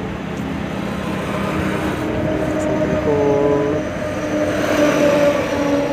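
Lorry running on the road, heard from inside the cab: steady engine and road noise with drawn-out whining tones, and a short steady tone about three seconds in.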